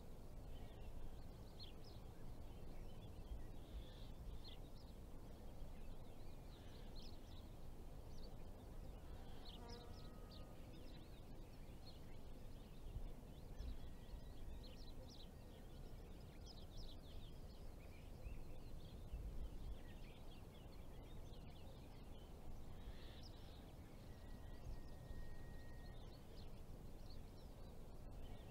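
Quiet outdoor evening ambience: many small birds chirping over a steady low rumble.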